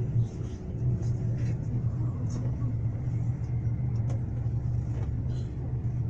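Steady low engine and road rumble of a road vehicle in motion, heard from inside it.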